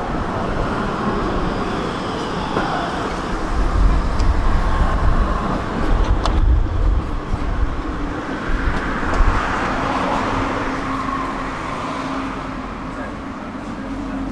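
City tram pulling in along the street, a low rumble and wheel noise mixed with road traffic, heaviest in the middle; a steady hum sets in over the second half as it comes to a stand.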